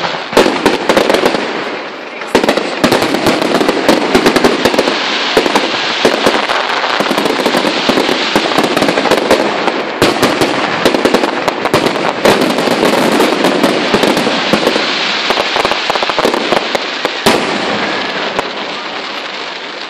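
Fireworks display in a dense barrage: many shells bursting close together with continuous crackling. It thins out and fades over the last few seconds after a final sharp bang.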